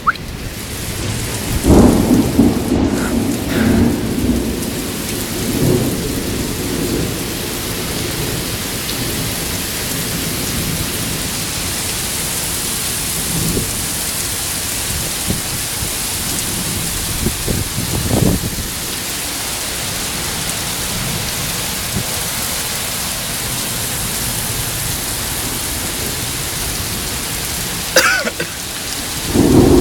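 Heavy rain pouring steadily in a severe storm, with low rumbles of wind or thunder swelling up a few times and a louder rumble near the end.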